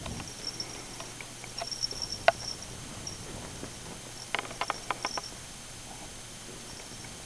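Two kittens play-wrestling on a bedspread: soft scuffling with a few sharp ticks, and a quick run of about six clicks about four to five seconds in.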